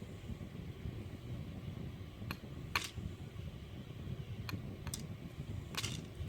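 A handful of light clicks of small lock pins and tools being handled during disassembly of an Abus 72/40 euro-profile cylinder, over a steady low hum.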